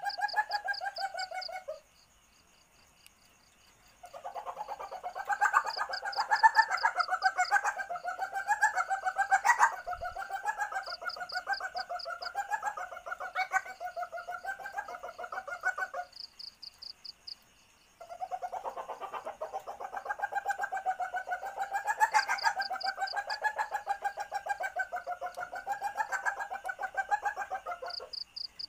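Common palm civet (musang pandan) calls, given as a female in heat calling males: two long bouts of rapid, chattering pulsed calls, each about ten seconds long, with a short pause between. Short cricket trills repeat every few seconds behind them.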